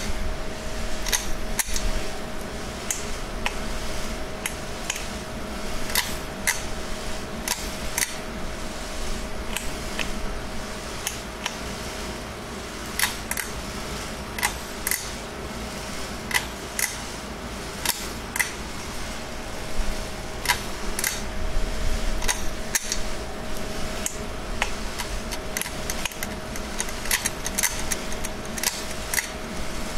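Irregular sharp ticks and clicks, a few each second, over a steady low hum and one thin steady tone held throughout.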